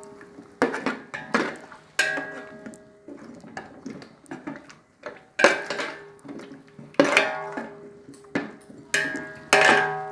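Steel ladle stirring potato chunks through a thin curry in a large aluminium pot, knocking and scraping against the pot's sides several times; each knock leaves the pot ringing with a few clear tones that die away.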